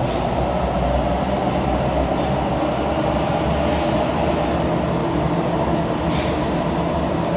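Train running: a steady low rumble with a constant mid-pitched hum over it.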